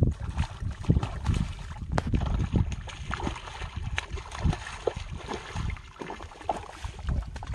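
Irregular water splashing and sloshing as a hooked fish thrashes at the surface and a man wades waist-deep beside it.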